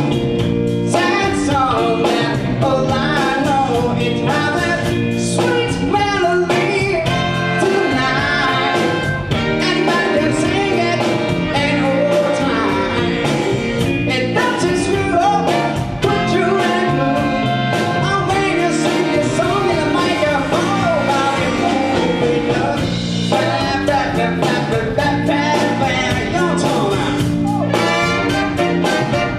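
A band playing live with a singer, continuous and loud throughout.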